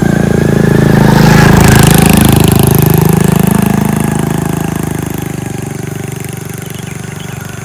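A small motorcycle passes close by, its engine getting louder to a peak about two seconds in, with a drop in pitch as it goes past, then fading steadily as it rides away.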